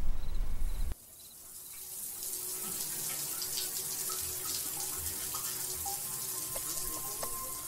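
A low rumble cuts off about a second in, and water starts running and splashing as a face is washed with soapy hands, swelling gradually.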